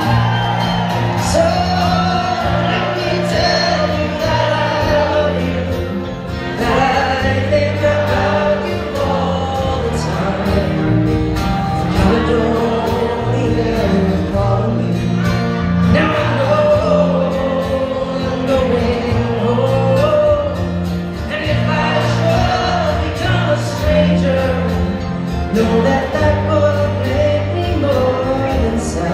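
Live folk band playing a slow song: several strummed acoustic guitars over steady bass notes, with voices singing a drawn-out melody.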